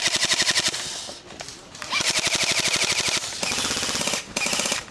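Airsoft rifle firing rapid full-auto bursts, a fast even rattle of shots. One burst runs on into the first moment, another comes about two seconds in, and two shorter bursts follow near the end.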